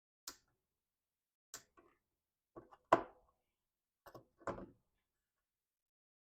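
A handful of short taps and clicks from small parts and tools being handled and set down on a workbench, the loudest a sharper knock about three seconds in and a duller thunk a little later.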